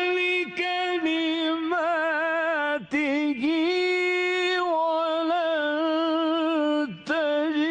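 A solo male voice chanting Quran recitation in the melodic mujawwad style, holding long notes with wavering, ornamented turns. It breaks off briefly about half a second, three seconds and seven seconds in.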